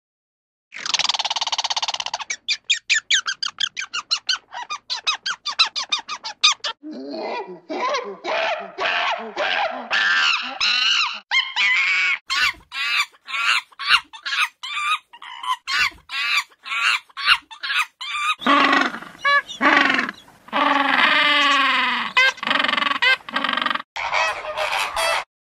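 A run of recorded animal call sound effects that changes every few seconds: a drawn-out call, then fast pulsing trills and quick repeated cries. About twelve seconds in it turns to rapid chattering of monkeys, and near the end to lower calls that bend up and down in pitch.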